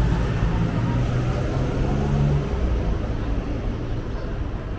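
A low motor hum over a noisy background, fading about halfway through.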